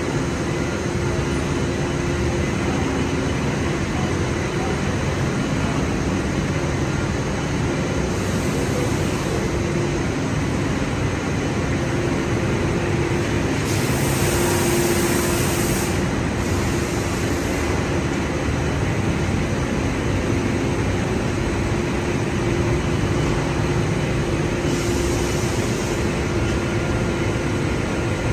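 Steady industrial machinery noise with a constant hum, broken by three bursts of high hiss.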